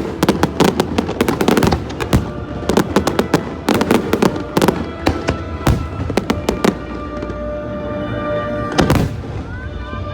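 Aerial fireworks bursting in a rapid run of crackles and bangs that thins out after about seven seconds, with one more big bang near the end, over music playing in the background.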